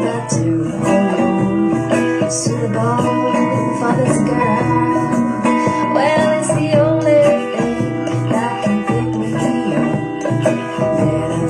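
A song with guitar and a singing voice played back through an Eggel Terra 3 Mini portable Bluetooth speaker as a sound test.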